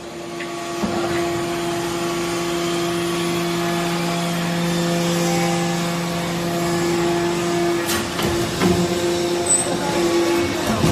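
Hydraulic aluminum shavings baler running: a steady machine hum over a hiss, with a lower tone dropping out about three quarters of the way through, then a few metallic knocks near the end.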